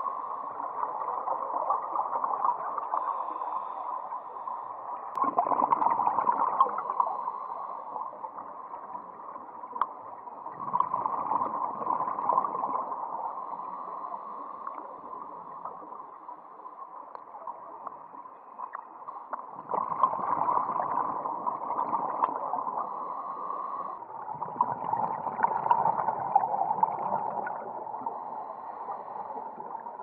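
Scuba diver's exhaled bubbles gurgling past an underwater camera in four bursts, a few seconds apart, over a steady muffled underwater hiss.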